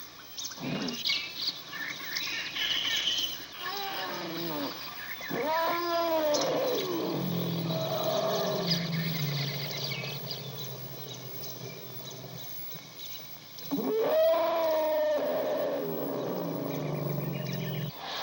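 Elephant calling: two bouts of loud arching roar-like calls, the first about four seconds in and the second near the end, each trailing into a long low rumble. Birds chirp faintly in the background.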